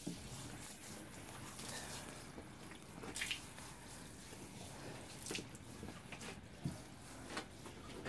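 Faint water drips and a few scattered small clicks over a low hiss, in a small room.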